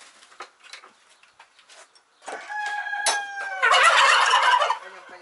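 Domestic fowl calling: a drawn-out call falling slightly in pitch starts about two seconds in, then a louder harsh rattling call follows for about a second. A few faint knocks come before the calls.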